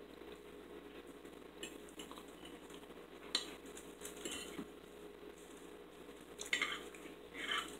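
Metal forks clinking and scraping on china dinner plates while eating: scattered light taps, with a couple of louder scrapes near the end.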